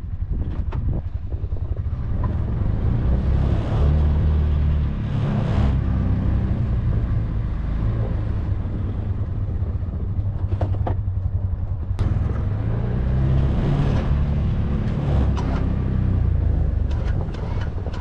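Can-Am Defender HD7 side-by-side's engine running under load while it pushes a steel snow plow blade through snow, its note rising and falling. A few sharp knocks and scrapes come from the blade.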